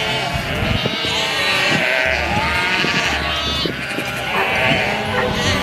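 A flock of sheep bleating, with many calls at different pitches overlapping.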